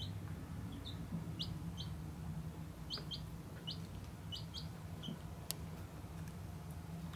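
Baby bird peeping: about ten short, high, rising peeps, some in quick pairs. A single sharp click comes about five and a half seconds in.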